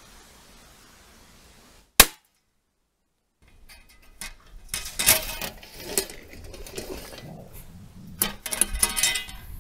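A single handgun shot fired into a wire cage trap holding a raccoon dog, about two seconds in. After a gap, the wire cage rattles and clanks repeatedly as it is handled.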